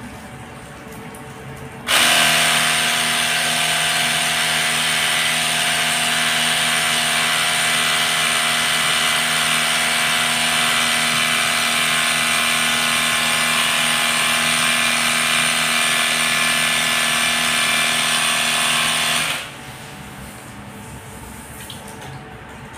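Portable electric pressure washer running steadily, its motor hum mixed with the hiss of the water jet, used to wash a split-type aircon indoor unit. It starts suddenly about two seconds in and cuts off a few seconds before the end.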